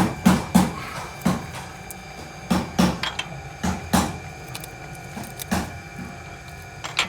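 Hand tools knocking and clinking on metal during a tappet adjustment: sharp, irregular taps, often two in quick succession, about every second, over a faint steady hum.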